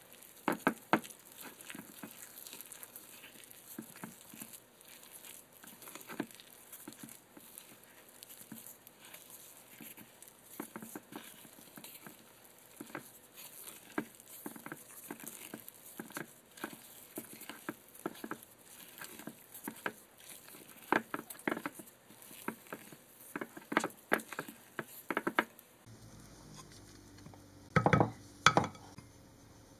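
Wooden spoon stirring and working a stiff bread dough in a ceramic bowl: irregular soft taps and scrapes, with two louder knocks near the end.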